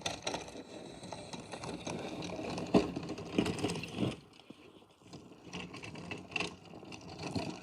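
Snow plow blade being pushed along a driveway, scraping through snow with irregular scrapes and knocks, the loudest knock a little under 3 seconds in.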